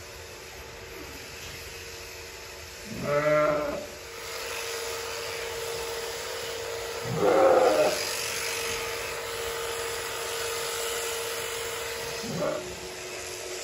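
Sheep bleating three times: about three seconds in, a louder call about seven seconds in, and a short one near the end. From about four seconds in, an electric sheep-shearing handpiece runs with a steady hum.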